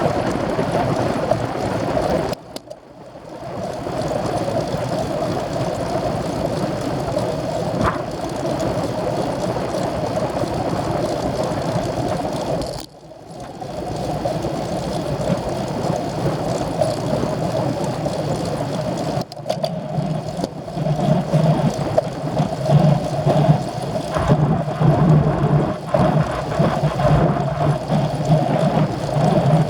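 Wind and road noise on the microphone of a camera riding along on a road bike. It is steady, drops out briefly twice, and turns deeper and gustier in the last third.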